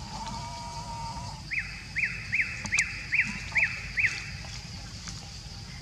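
Animal calls: a flat held note for about a second and a half, then seven quick, high calls that each rise and fall, about two and a half a second.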